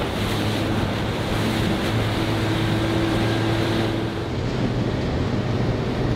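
Breaking surf and wind on the microphone, with a steady low hum from a Suzuki outboard motor pushing a small boat through the waves. The upper hiss drops away about four seconds in.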